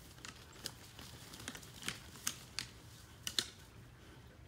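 Antlers of sparring deer bucks clacking together: irregular sharp clicks, a few of them louder, with a quick double clack near the end.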